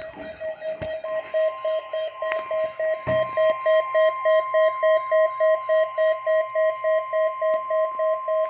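NOAA Weather Radio's steady 1050 Hz warning alarm tone, which starts about a second in, heard together with a weather radio receiver's alert beeping about three times a second. The receiver has been automatically set off by the required weekly test of the warning alarm.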